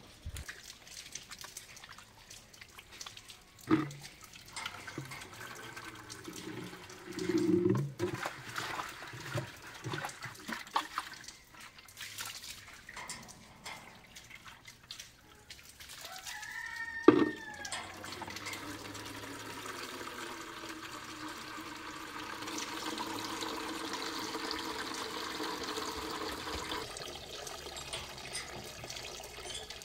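Scattered knocks and handling noises, then one sharp clank a little past halfway, followed by water running into a container, its tone rising as the container fills, until the flow stops near the end.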